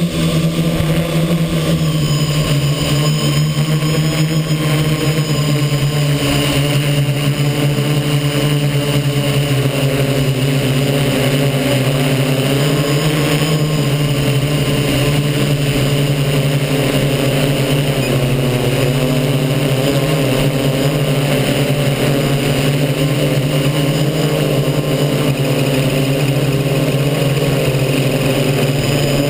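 Multirotor drone's brushless motors and propellers buzzing in flight, heard up close from a camera on the frame: a loud, steady drone with a strong low hum and overtones that waver slightly in pitch as the motors adjust their speed.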